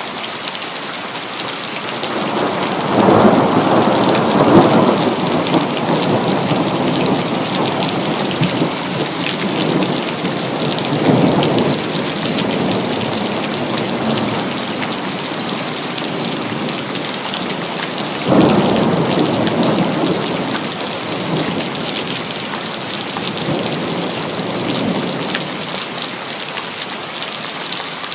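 Steady rain hissing, with thunder rolling over it several times. The loudest roll comes about three seconds in, another about a third of the way through, one breaking in suddenly about two-thirds through, and a fainter rumble later on.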